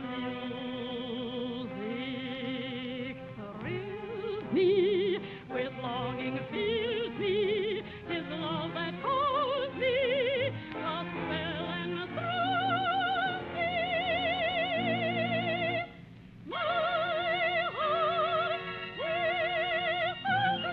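Operetta singing with orchestra: a trained voice holds long high notes with wide vibrato, with a brief pause about sixteen seconds in. The sound is dull and narrow, like an old 1940s broadcast recording.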